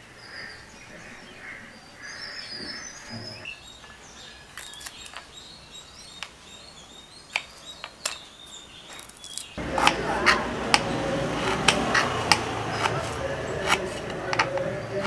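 Faint bird chirps at first, then a few sharp knife knocks on a wooden block. From about ten seconds in comes louder, denser knife chopping on a wooden board, ginger being cut into pieces.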